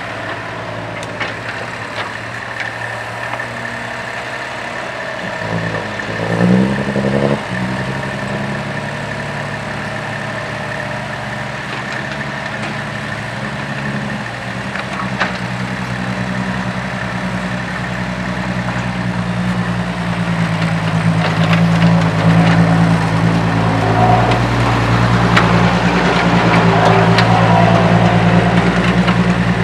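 Old mini crawler excavator's diesel engine running under hydraulic load while it digs soil, with a rising rev about six seconds in and a heavier, louder run through the second half. A few sharp clanks from the bucket and arm break through.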